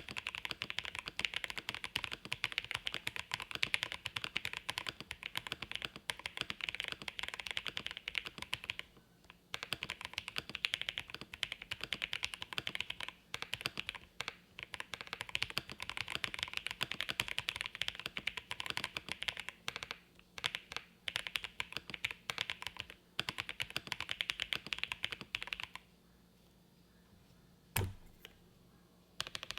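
Fast typing on a Jelly Epoch mechanical keyboard with lubed Holy Boba tactile switches on a polycarbonate plate, no case foam, and GMK keycaps. The keystrokes have a thock-pop sound, with brief pauses in the run. The typing stops a few seconds before the end, where there is one louder knock.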